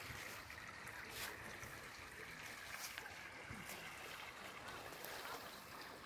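Faint, steady rush of a small river flowing, with a few light clicks over it.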